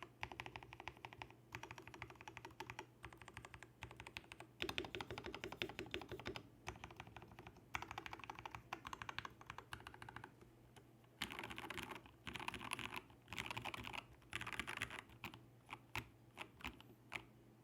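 Typing on a KBD67 Lite R2 mechanical keyboard with an FR4 plate, switch pad and lubed KS-3 Gateron Yellow linear switches. Quick runs of keystrokes come with short pauses between them, then a few single key presses near the end.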